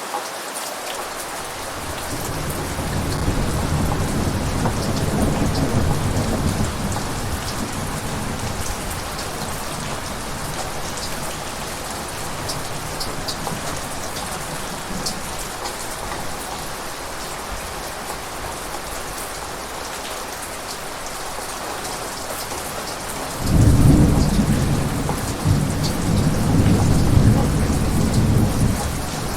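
Steady heavy rain, with thunder rumbling low: a rolling rumble swells and fades in the first few seconds, and a louder clap of thunder breaks suddenly about three-quarters of the way through and rumbles on for several seconds.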